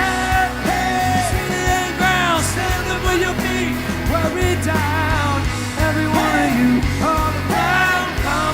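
Rock song with a sung melody over a steady bass line.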